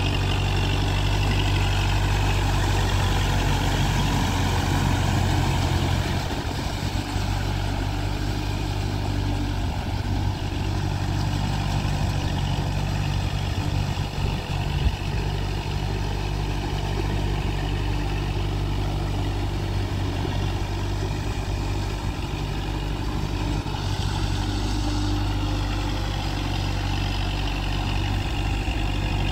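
Kubota MU4501 tractor's four-cylinder diesel engine running steadily under load as it drags cage wheels through a flooded rice paddy.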